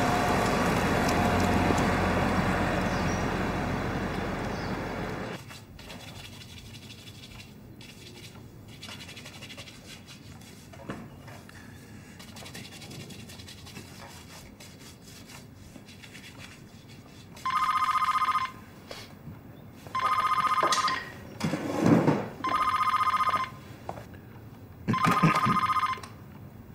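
Music that cuts off about five seconds in, then a landline telephone ringing four times, each electronic ring about a second long and coming every two and a half seconds or so.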